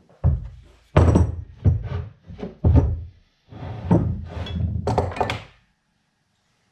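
Drill press parts being handled and fitted during assembly: a string of thunks and knocks over the first few seconds, then a longer stretch of knocking and scraping that stops a little over two-thirds of the way through.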